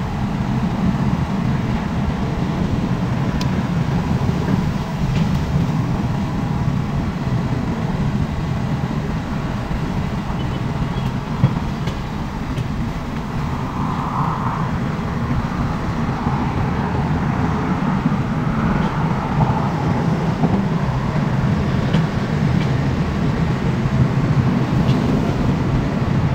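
SANY crawler excavator's diesel engine running steadily with a low rumble while the machine digs and swings, with a few brief higher swells in the second half.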